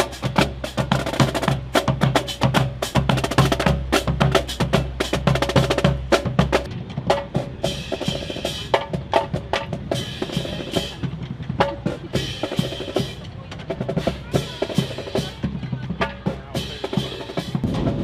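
Percussion-heavy music: rapid, dense drum strikes with snare rolls over a steady bass line, and the bass drops out about a third of the way through.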